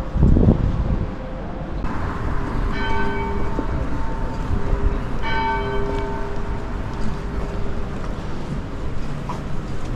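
A church bell struck twice, about two and a half seconds apart, each stroke ringing on with a rich stack of overtones. Low wind rumble on the microphone in the first second.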